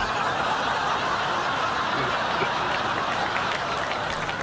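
Studio audience laughing, with some applause.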